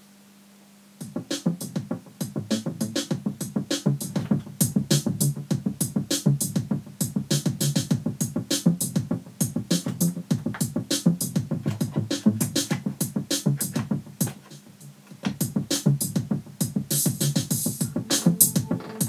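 Electronic music with a fast drum-machine beat and synthesizer, played as a test through the restored Sansui 881 stereo receiver. It starts about a second in, drops out briefly near the three-quarter mark, and comes back.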